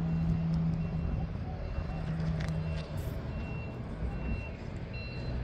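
Scania V8 diesel truck engine idling with a steady low rumble, while a reversing alarm beeps in a high, even rhythm about once a second.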